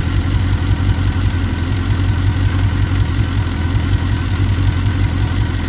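Suzuki GSX-R1000 K1's inline-four engine idling steadily in neutral.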